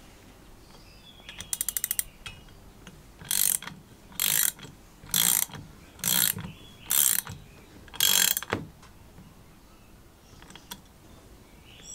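Ratcheting wrench tightening a metal nut on a vintage blowtorch soldering iron: a quick run of clicks, then six ratcheting strokes about a second apart.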